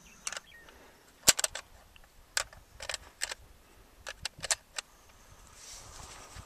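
Ammunition being loaded by hand: about a dozen light, sharp metallic clicks at an irregular pace, the loudest about a second in.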